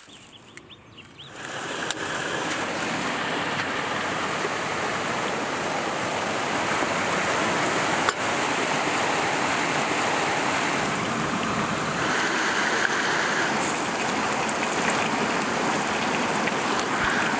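Steady rush of a flowing stream, coming in about a second and a half in, with a single sharp knock of a cleaver on a wooden chopping board about eight seconds in.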